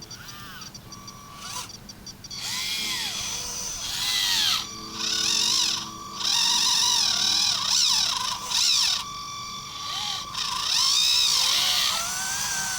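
Small electric motors of RC construction machine models whining, their pitch rising and falling again and again as the machines speed up and slow down.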